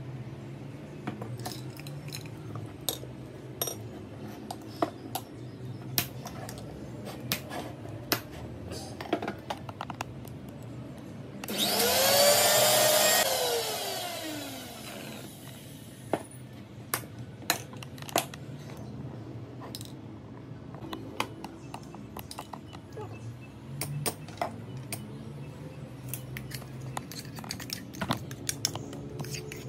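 Kitchen mixer grinder (mixie) with a steel jar, run once for about two seconds: the motor spins up fast, runs, then winds down in a falling whine. It is grinding coconut with coconut milk into chutney. Light clinks and taps of utensils and the steel jar come before and after.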